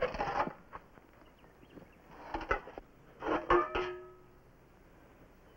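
Metal cooking pots and pans clattering as they are handled, in three short bursts. The last clang rings on briefly.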